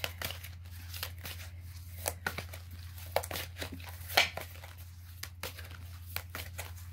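A deck of tarot cards being shuffled and handled by hand: irregular papery snaps and flicks, loudest about four seconds in, over a steady low hum.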